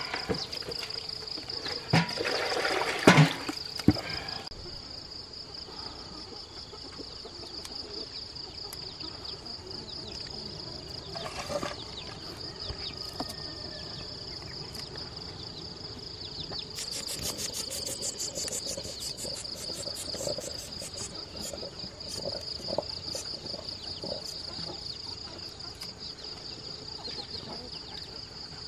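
Steady high-pitched insect chorus. A few loud knocks and rustles come in the first few seconds, and a faster, evenly pulsing insect call joins for a few seconds past the middle.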